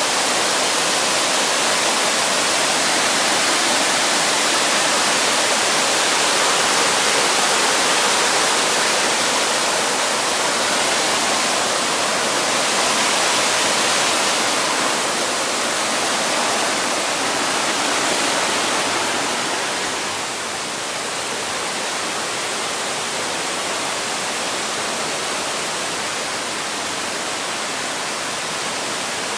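Mountain stream water rushing steadily, a little quieter from about two-thirds through.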